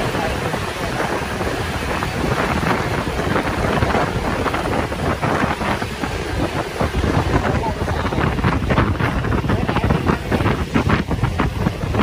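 Wind buffeting the microphone on a moving motorbike, over a steady rumble of engine and traffic noise, gusting harder in the second half.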